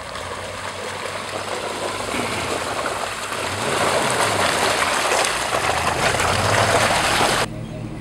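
Jeep Grand Cherokee WJ's 4.7-litre V8 working up a muddy rut under load, revving once in the middle, with its mud tyres churning and flinging mud. The noise grows louder and then cuts off abruptly near the end.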